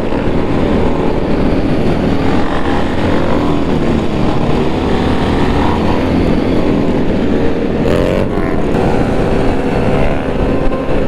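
Several sportbike engines running at once in a loud, continuous din. One revs up about eight seconds in, and another revs up and back down at the very end.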